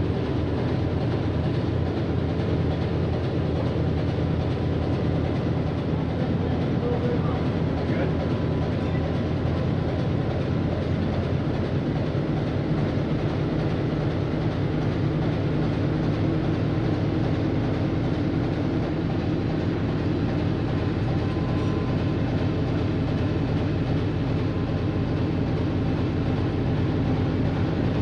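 German U-boat diesel engines running steadily: a dense, even low rumble with a fast regular beat.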